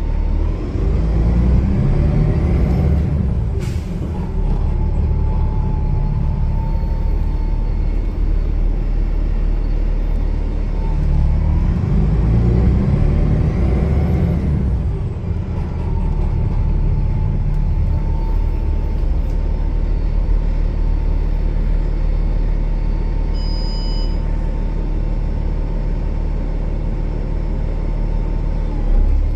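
A 2014 Gillig Low Floor 40-foot transit bus's turbo diesel engine pulls up twice, each time with a rising and falling turbo whistle and then turbo flutter as the throttle comes off. There is a sharp pop about four seconds in.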